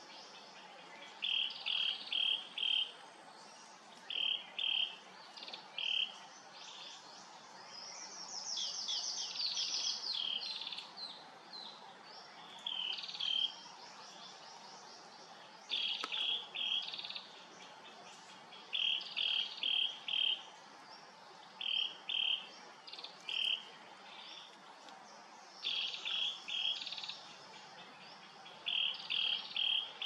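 A songbird calling in clusters of three or four short, high chirps, repeated every second or two, with a longer run of fast notes about eight to eleven seconds in. A faint steady hum of the surroundings lies underneath.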